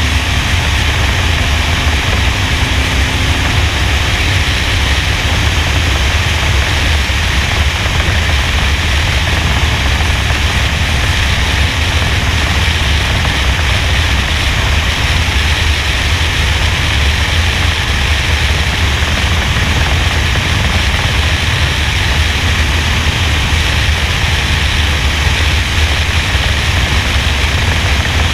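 NASCAR stock car's V8 engine running at racing speed, largely buried under heavy wind rush over a roof-mounted action camera. Steady, with no clear lift off or throttle change.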